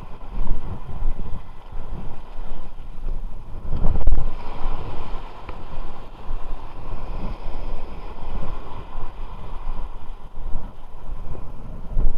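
Wind buffeting the microphone in uneven gusts, with the strongest gust about four seconds in.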